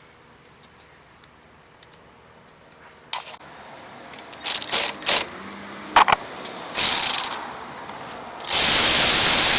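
Light metallic clicks and knocks as screws are driven back in on a snowblower carburetor, over a faint, fast-pulsing high whine. Near the end comes a loud, steady hiss lasting about two seconds.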